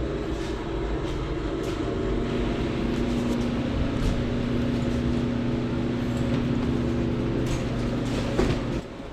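Pressure washer running steadily while spraying; near the end the spray stops and the motor keeps running.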